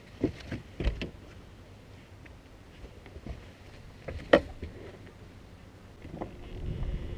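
Knocks and bumps on a bass boat deck while a caught bass is handled, with one sharp knock about four seconds in, the loudest sound. A low, steady hum comes in near the end.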